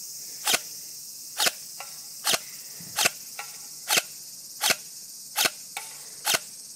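Systema PTW airsoft M4 run on an 11.1 V Li-Po battery, firing single shots on semi-automatic: eight sharp cracks, about one every 0.8 seconds.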